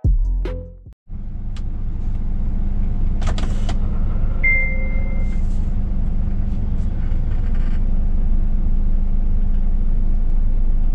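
The tail of the intro music, cut off about a second in, then a Scania S500 truck's engine running, heard inside the cab: a steady low drone that grows slowly louder as the loaded truck moves off. A short clatter at about three seconds and a brief high beep a little later.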